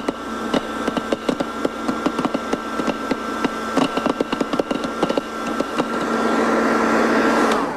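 Electric popcorn popper running with a steady motor whine and hum while corn kernels pop in quick irregular cracks. Near the end the motor winds down in a falling whine as the batch finishes.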